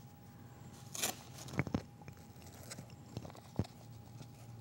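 Brown paper bag being torn into small pieces by hand: a short rip about a second in, then scattered small crackles and taps of the stiff paper being handled.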